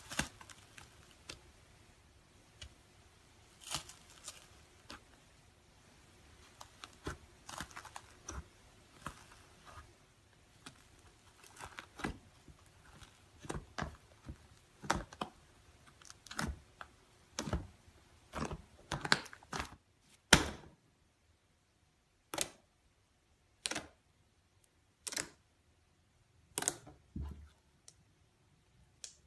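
Iceberg slime's hardened crust crunching and crackling under pressing fingers, in irregular sharp clicks that grow denser. After about twenty seconds come single sharp pops from the slime, about one every second and a half.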